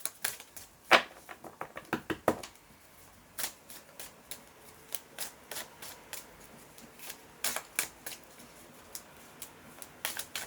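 Tarot cards being handled and shuffled: irregular sharp slaps and clicks of card stock, a quick cluster about a second in, then scattered taps.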